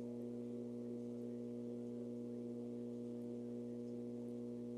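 A steady, low electronic drone made of several held tones layered together, with no change in pitch or level.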